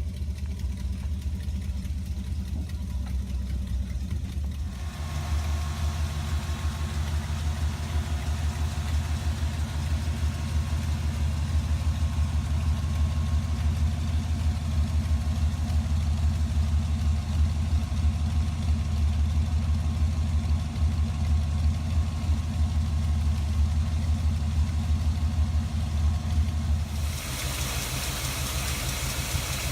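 Chevrolet 350 small-block V8 idling steadily. Its sound gets louder and fuller about five seconds in, then shifts again to a thinner, hissier tone near the end.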